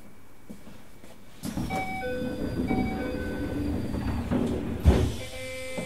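Keisei 3000-series passenger doors sliding open with a rush of noise about a second and a half in, a two-note door chime sounding twice, and a loud thump near the end as the doors stop, followed by more chime tones.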